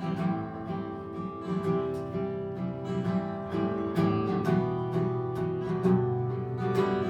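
Acoustic guitar strumming chords in a steady rhythm, the instrumental intro of a folk punk song played live.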